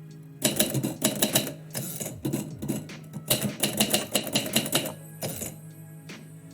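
Typewriter being typed on: quick runs of sharp key clacks, easing off about a second before the end.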